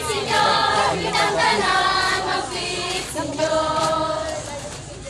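Many voices singing together in short phrases, growing quieter near the end.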